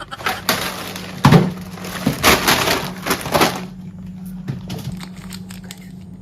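Chocolate-bar wrappers and snack packets rustling and clattering as they are stacked onto fridge shelves, with a sharp knock about a second in. The handling goes on for about three and a half seconds, then thins to a few light clicks.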